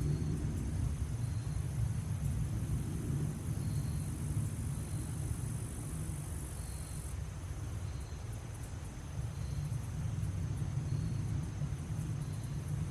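Insects chirping in short repeated notes about once a second, over a high insect buzz that cuts off about seven seconds in, with a steady low rumble underneath.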